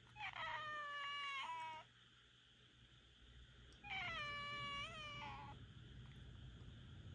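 Minuet cat meowing twice: two long, drawn-out meows of about a second and a half each, each sliding slightly down in pitch, about two seconds apart.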